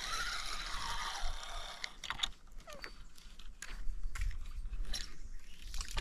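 A spinning fishing reel whirring for about two seconds, falling in pitch, then a few sharp reel clicks, with wind rumbling on the microphone near the end.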